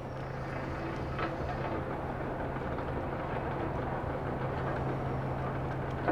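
A heavy engine running steadily: a constant low hum under a dense wash of mechanical noise, with a small click about a second in.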